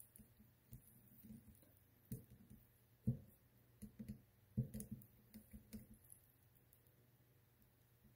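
Faint scattered clicks and light knocks from handling soldering tools and a connector on a workbench, the two strongest about three and four and a half seconds in.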